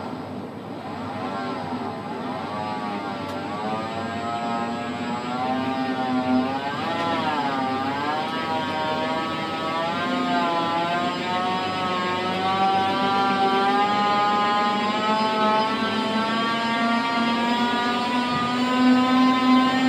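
Tower crane's electric drive motor whining as the crane moves, its pitch wavering up and down over the first half and then climbing slowly and steadily as the motor speeds up, over a steady low hum.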